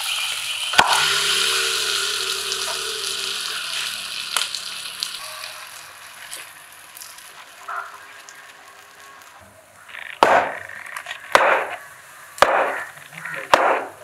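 Adai batter sizzling loudly on a hot cast-iron griddle over a wood fire, the sizzle fading over several seconds. Near the end come four short bursts of sizzling about a second apart, each starting with a sharp tick, as oil is added around the adai.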